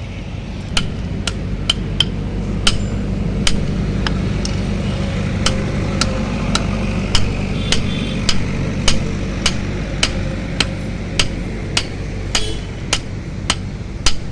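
Blacksmith's hammer striking metal at a steady pace, about two blows a second, each a sharp knock with a brief high ring. A steady low hum runs underneath.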